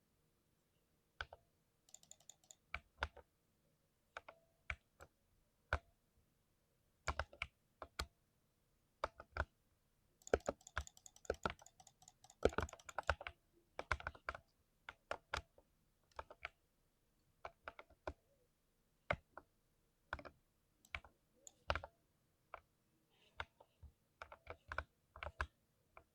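Typing on a lubricated 60% mechanical keyboard: separate keystrokes in an uneven rhythm, with a quick burst of typing about ten seconds in.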